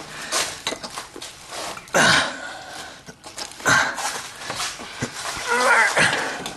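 Short, noisy bursts of strained breathing and grunts from people pushing hard to seat an exhaust pipe section, with a brief wavering vocal sound near the end.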